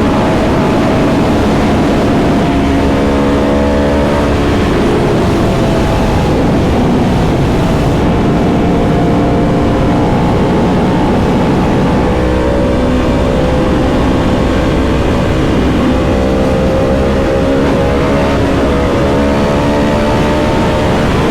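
Yamaha R1M's crossplane inline-four engine running under way at a steady, fairly high level, its note shifting in pitch a few times as the throttle and gears change, over a constant rushing noise.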